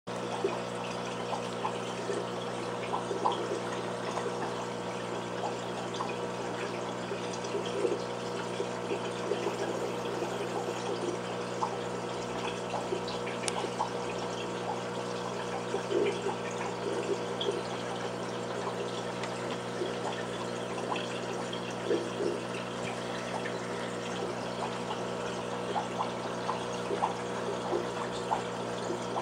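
Aquarium filter running: a steady electric hum with water trickling and small irregular gurgles throughout.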